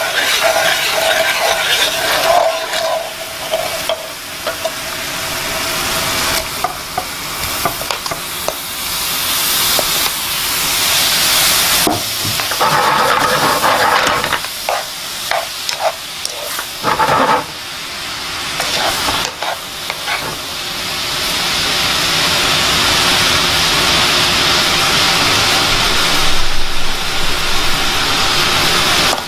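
Fig chutney cooking in a pan, sizzling and hissing as it is stirred, with a few louder stirring strokes around the middle.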